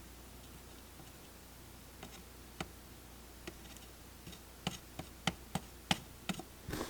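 Soldering on a phone circuit board: sharp, irregular ticks and clicks, sparse at first and coming closer together after about four and a half seconds, over a faint low hum.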